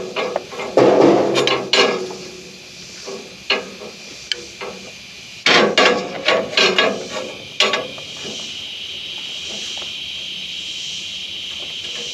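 Bursts of mechanical clattering: knocks and clicks like metal parts being handled, in two clusters. About two-thirds of the way in they give way to a steady hiss.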